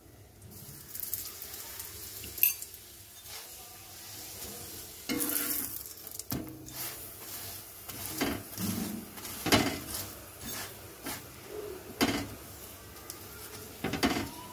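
Oil sizzling under a paratha frying on a flat griddle (tawa), freshly oiled. A steel spatula presses and scrapes the paratha against the pan, giving a string of sharp metal knocks and scrapes over the hiss.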